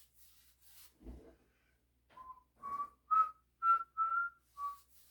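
A man whistling a short tune of six clear notes that climb in pitch and drop on the last one, with a soft knock about a second in.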